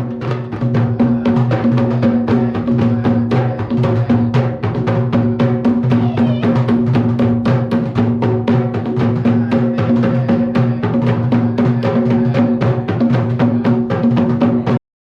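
Drums played by hand in a fast, dense rhythm over a steady low tone, cutting off abruptly near the end.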